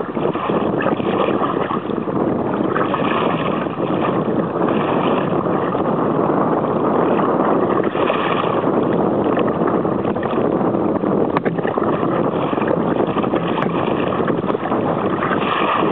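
Choppy water slapping and splashing against a kayak's hull, with wind buffeting the microphone. Splashes swell every few seconds, and spray comes over the bow near the end.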